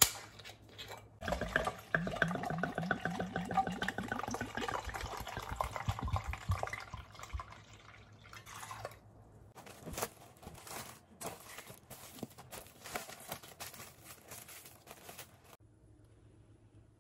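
Liquid poured into a stainless steel mixing bowl, the pitch of the pour rising steadily as the bowl fills. It is followed by a run of crackles and clicks from plastic wrap being stretched over the bowl.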